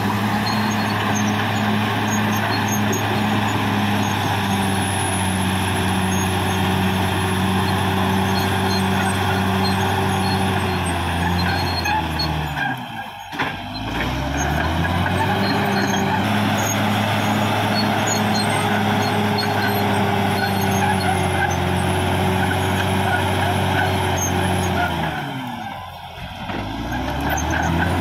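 Caterpillar D6R XL bulldozer's diesel engine running steadily. Its revs drop and climb back up twice, once about halfway through and once near the end.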